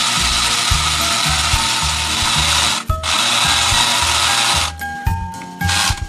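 Toy blender whirring in two long runs with a brief break about three seconds in, then a short burst near the end, over background music with a steady beat.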